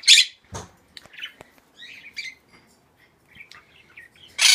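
Quaker parrots chirping and squawking: a loud, short squawk right at the start and another near the end, with softer chirps between. A few sharp clicks come in the first second and a half.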